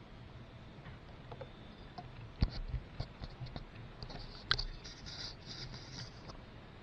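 Dry autumn leaves rustling and crackling in short irregular bursts, with two sharper clicks about two and a half and four and a half seconds in.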